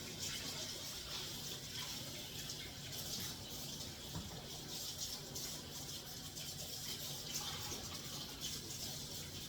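Steady rush of running water, unbroken throughout.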